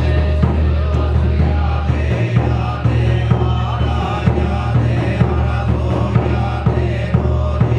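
Buddhist sutra chanting in unison over a steady low hum.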